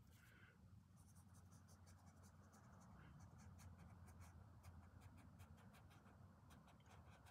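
Faint scratchy strokes of a paintbrush dabbing oil paint onto textured canvas, many short scrapes in quick succession over a low steady hum.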